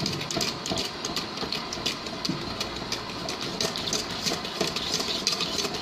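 Wire whisk clattering and scraping rapidly against a stainless steel bowl, whisking egg whites and sugar over a double boiler to dissolve the sugar.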